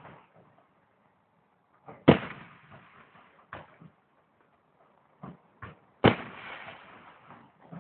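Aerial firework shells bursting: two loud booms about four seconds apart, each trailing off over a second or so, with several fainter pops between them.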